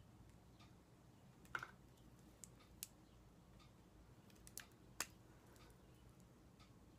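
Near silence broken by a few small, sharp clicks and taps, the loudest about a second and a half in and again about five seconds in: makeup cases and an eyeliner pencil being handled.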